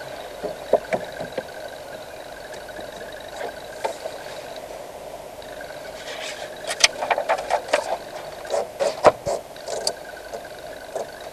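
Steady car interior noise with the engine running, broken by irregular clicks and rattles that cluster between about six and ten seconds in.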